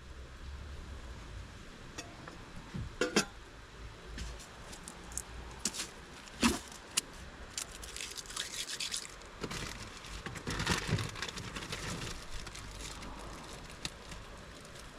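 Scattered light clicks, clinks and knocks of objects being handled, with two louder knocks about three and six and a half seconds in.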